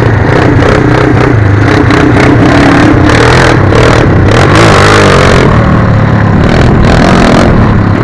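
Small motorcycle engines of a pit bike and a scooter running at speed, with the engine pitch rising and falling about halfway through.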